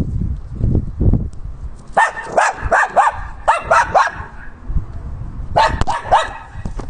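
Dog barking in two bursts: a quick run of about seven barks starting two seconds in, then three more near the end. Low rumbling and thumps run underneath.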